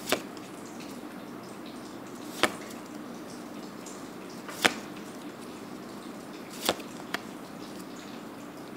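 Magic: The Gathering cards being flipped through by hand one at a time, each card slid to the back of the stack with a short sharp snap, roughly every two seconds. A faint steady hum runs underneath.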